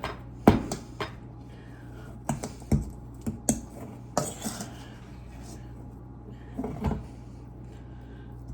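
A fork clicking and scraping against a bowl while a thick cream cheese filling is stirred, in irregular taps, most of them in the first half and a couple more near the end.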